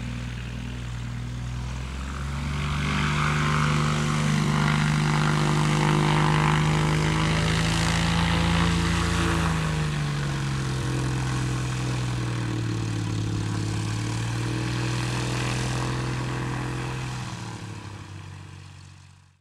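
Cessna 182P Skylane's Continental O-470 six-cylinder piston engine and propeller running at low power. The engine note rises about two seconds in, holds, then eases back down around ten seconds, and the sound fades and cuts off abruptly at the end.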